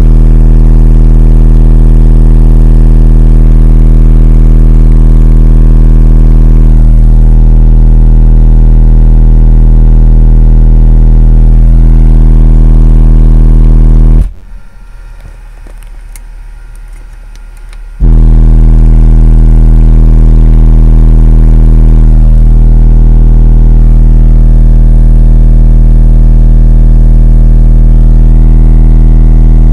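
A 40 Hz sine-wave test tone played very loud through two Brutus 15-inch subwoofers in a car cabin, driven by a Boss monoblock amplifier delivering about 230 watts. It is a steady deep hum that cuts off about 14 seconds in and starts again about four seconds later as the track loops.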